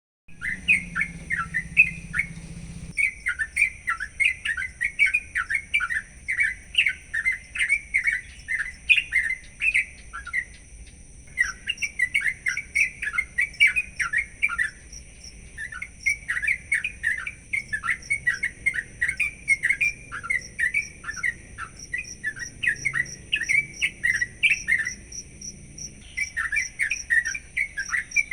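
A curukcuk bulbul singing in long runs of rapid, chattering chirps, with a few brief pauses between runs. A faint steady high-pitched whine runs underneath.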